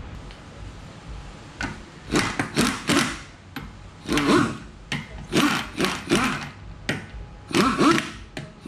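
Impact wrench (rattle gun) running the wheel nuts onto a car's front wheel, in several short bursts, its motor whine rising and falling with each one.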